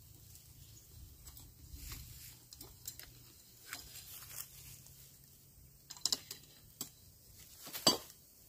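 Rustling and scattered light clicks of a green bamboo pole being handled over dry leaves and bamboo litter, with a few sharper knocks about six seconds in and one loud knock near the end.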